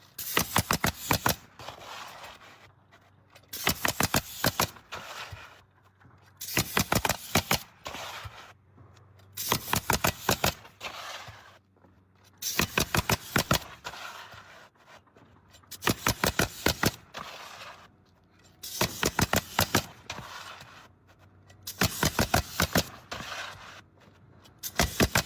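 Pneumatic roofing nail gun firing quick runs of nails into asphalt shingles, one run about every three seconds, with shingles scraping into place between the runs.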